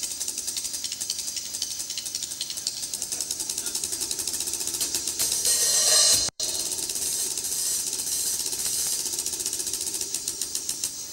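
Drum solo passage of rapid, even, light stick strokes on the cymbals with hardly any drum, rising to a louder cymbal wash about six seconds in before the sound drops out for an instant.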